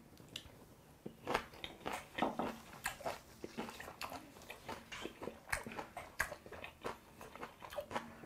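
Close-miked chewing of a mouthful of raw beef, with many short, irregular wet clicks several times a second.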